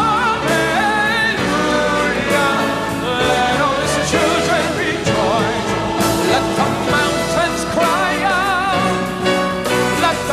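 Choir singing with instrumental accompaniment, held notes wavering with vibrato, strongest near the end.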